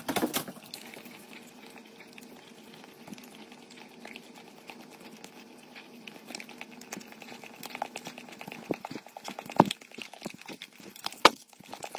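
A German Shepherd licking and smacking wetly at a metal utensil: a string of wet clicks that gets louder and sharper over the last few seconds, over a faint steady hum.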